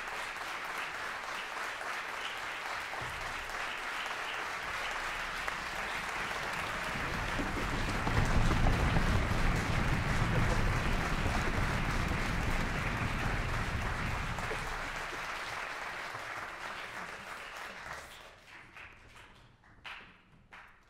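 Audience applauding in a concert hall. The applause grows louder about a third of the way in, then dies away to a few scattered claps near the end.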